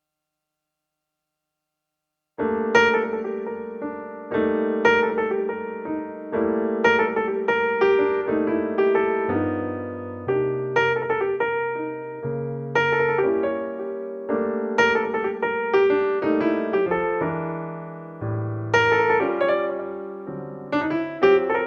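Background piano music: struck chords and melody notes, each dying away, starting about two and a half seconds in after silence.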